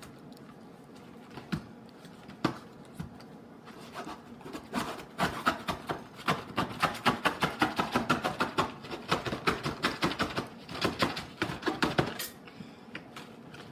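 A frozen pizza being taken out of its cardboard box: a long run of quick crackling and tapping as the cardboard and wrapping are handled and torn open, densest through the middle.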